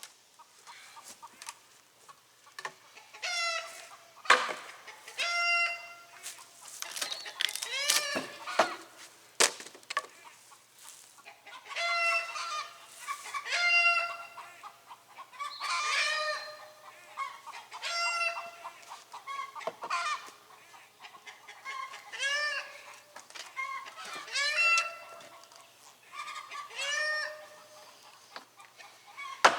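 Chickens calling over and over, one loud pitched call about every two seconds. A few sharp knocks in the first ten seconds.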